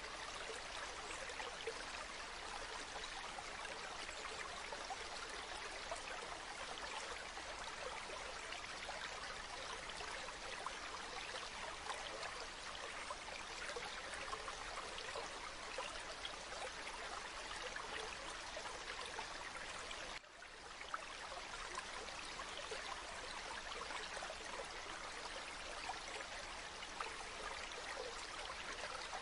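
Shallow water running steadily over pebbles. About two-thirds of the way through, the sound dips briefly and then resumes.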